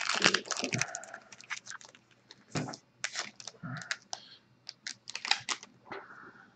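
Baseball trading cards being handled and flipped through by hand: irregular quick light clicks and rustles, busiest in the first second or so.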